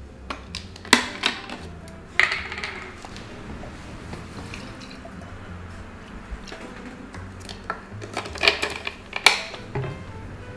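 Background music, with a drink being poured into a glass and a few sharp clinks of glass on glass.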